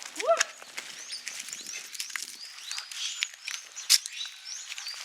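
Many birds chirping in short, quick arching notes, with one lower call at the very start and a sharp click just before four seconds in.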